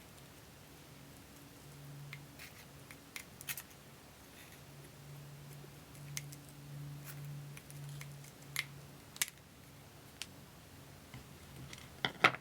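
Scissors cutting a small circle out of a paper-backed sandpaper disc: scattered short, sharp snips at irregular intervals, the loudest near the end, over a faint low hum.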